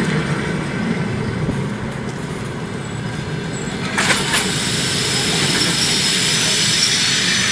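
Russian passenger coaches rolling slowly past along the platform as the train brakes to a stop: steady rolling wheels on rail, a short clatter over a rail joint about four seconds in, then a high brake and wheel squeal starting near the end.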